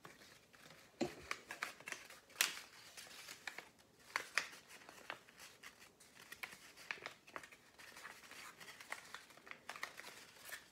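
Faint rustling and crinkling of paper tubes being handled and pressed together while gluing, with scattered light clicks and taps.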